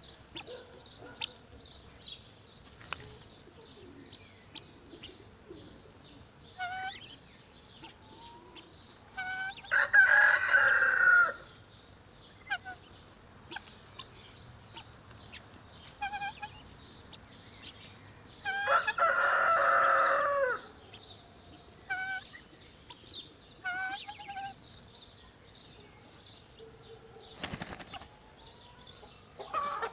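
Backyard poultry: a rooster crows twice, each crow about two seconds long, with short clucks and chirps from the flock in between. A brief rustling burst comes near the end.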